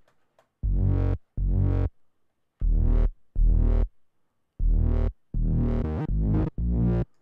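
Moog Sub Phatty synth bass line playing back, about eight short notes of about half a second each with gaps between. It runs through the Waves Renaissance Bass plugin, which adds low harmonics to fatten the lows, while its frequency setting is swept.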